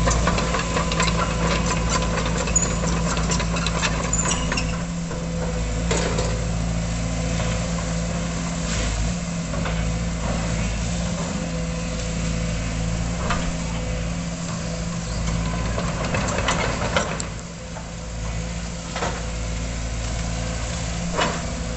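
Sumitomo crawler excavator's diesel engine running steadily as the machine travels on its steel tracks, with scattered sharp knocks and clanks.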